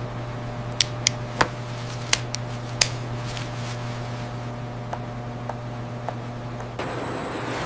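Steady low machinery hum, with several sharp clicks in the first three seconds and a few fainter ticks later.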